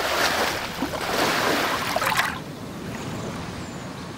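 Surf washing up a sandy beach, a steady hiss of breaking water that drops away about two seconds in, leaving a quieter outdoor background.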